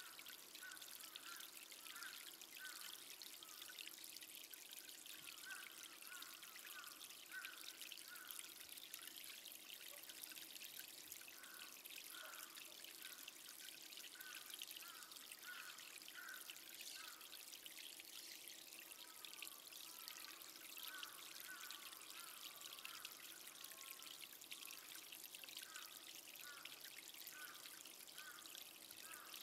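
Faint trickle of running water, steady, with small gurgles coming every half second or so.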